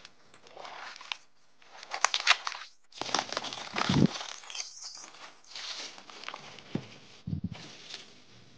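Clear plastic wrapping crinkling and tearing as it is pulled off a smartphone's cardboard box by hand. It comes in irregular crackly bursts, loudest a few seconds in, then dies down.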